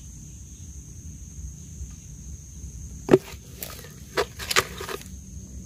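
A few sharp knocks in the soil from digging for earthworms: the first and loudest about three seconds in, then four more over the next two seconds.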